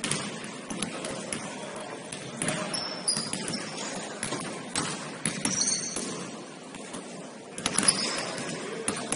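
A basketball bouncing on a gym floor during play, with scattered thuds and a few short high squeaks from sneakers. The gym hall echoes, and the loudest thud comes about eight seconds in.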